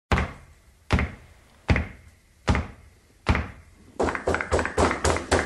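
Opening of a music soundtrack: five heavy percussive hits about 0.8 seconds apart, each ringing out, then a quicker run of hits from about four seconds in building into the full track.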